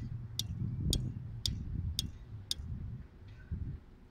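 Fishing reel on a rod set in a stand, clicking sharply and evenly about twice a second as it is worked; the clicks stop about two and a half seconds in. A low rumble runs underneath.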